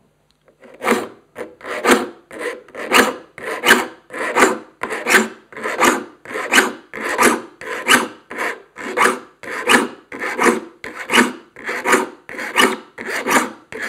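A saw file rasping across the teeth of a 7-point crosscut handsaw, sharpening it to a crosscut. It goes in steady, even push strokes, about one and a half a second, starting about a second in.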